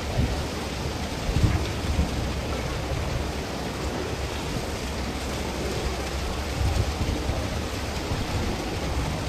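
Wind buffeting the microphone: a steady rushing hiss with uneven low rumbles, a little stronger about one and a half seconds in and again around seven seconds.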